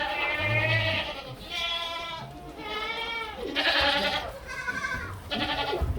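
Black goats bleating: about six wavering calls, each under a second long, following one another closely.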